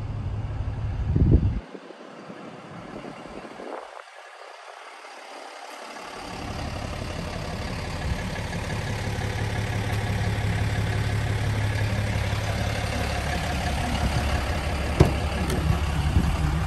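A 6.7-litre Cummins turbo-diesel straight-six idling: a steady low rumble with a light clatter, growing louder from about six seconds in. A brief burst of wind hits the microphone about a second in.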